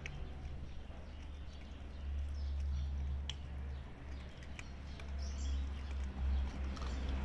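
A dog and a cat eating dry kibble off the ground, with scattered sharp crunching clicks of chewing. Beneath them runs a low, uneven rumble.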